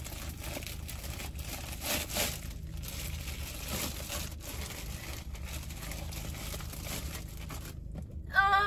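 Gift wrapping crinkling and rustling as a present is pulled open by hand, with louder crinkles about two seconds in and again near four seconds. Near the end a woman's voice lets out a loud, drawn-out, rising 'ooh'.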